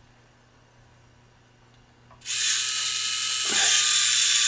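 Hobby King small-size alloy electric retract system on a hexacopter, its servo motors whirring as the landing gear legs swing up. The whir starts suddenly about halfway in and runs on steadily.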